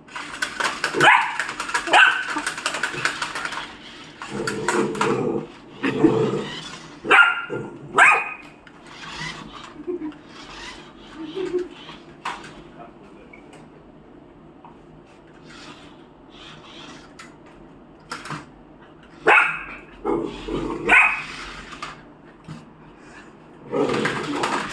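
A dog barking in scattered bursts, with quieter stretches between, agitated at an automatic toy car.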